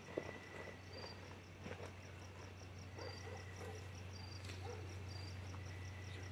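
Crickets chirping, a faint, even high-pitched pulsing about five times a second, over a low steady hum.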